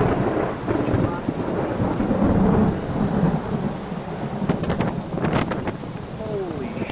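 Thunder rumbling through steady rain during a thunderstorm, the rumble loudest about two to three seconds in.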